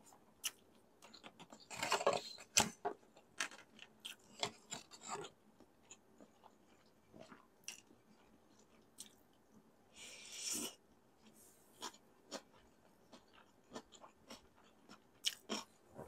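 Close-miked chewing of stir-fried pancit canton noodles: wet mouth clicks and smacks throughout, with two louder, longer noisy sounds about two seconds and ten seconds in.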